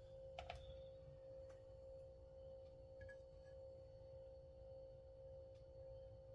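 Near silence: a faint steady hum with a couple of small clicks about half a second in.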